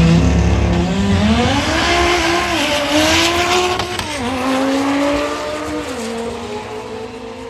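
Audi TT race car's engine held at steady revs for about a second, then launching hard down a drag strip. Its pitch climbs and drops back at three upshifts, and the sound fades as the car pulls away.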